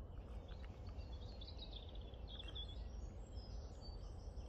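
Lakeside ambience: small birds chirping faintly in short high calls, mostly in the first two-thirds, over a steady low rumble.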